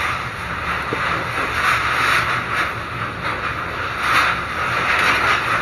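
Typhoon wind and rain battering a house: a steady rushing noise that swells and eases in gusts.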